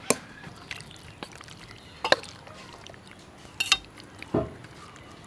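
Utensils stirring and mixing wet food in a bowl: a spoon through sauce, then chopsticks through marinated beef kidney pieces. A few sharp clinks against the bowl, about one every second or two, the last one duller.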